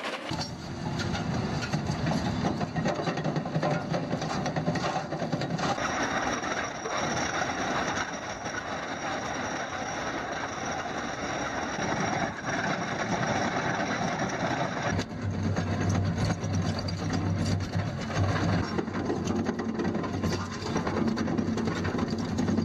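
Excavator-mounted hydraulic rock-cutting attachments, a rotary cutting head and a chain trencher, grinding through rock and soil over the excavator's running diesel engine. The sound changes abruptly about 6 and 15 seconds in.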